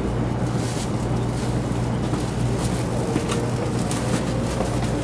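Running noise of a 300 series Shinkansen heard inside the passenger car: a steady low rumble and hum with a few faint clicks, and a faint whine that slowly rises in pitch from about halfway through.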